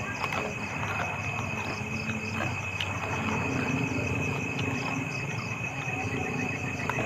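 Night-time insect chorus: a steady high-pitched trill with a second, higher chorus pulsing about four times a second. A few faint clicks and low rustling sit underneath.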